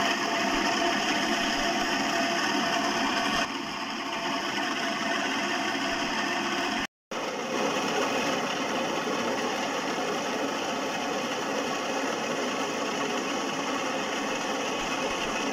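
Table-top wet grinder running, its rollers turning in the steel drum as they grind dosa batter: a steady mechanical hum, with a momentary break about seven seconds in.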